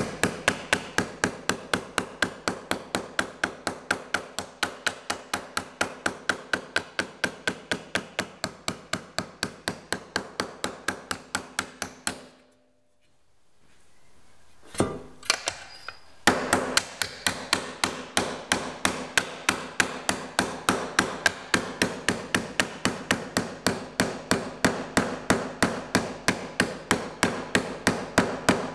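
Nylon mallet tapping a sheet-metal repair panel resting on a leather shot bag: light, rapid, evenly spaced blows at about four a second, hand-forming a slight curve into the panel. About twelve seconds in the tapping stops for roughly two seconds, a few single blows follow, then the steady tapping resumes.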